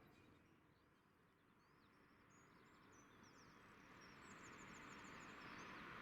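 Faint small-bird chirps and quick trills over near silence, with a soft rushing noise that slowly builds through the second half, typical of a train approaching along the line.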